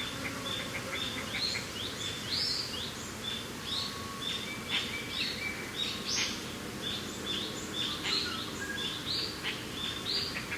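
Songbirds chirping, many short high notes several times a second, over a steady low rush of mountain wind.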